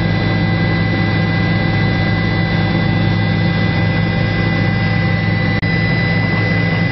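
Steady, loud drone of a helicopter heard from on board: a low engine and rotor hum with a constant high whine, dipping briefly about five and a half seconds in.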